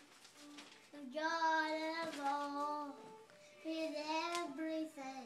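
A young boy singing along with headphones on, only his voice heard: long held notes in two phrases, the first about a second in and the second past the middle.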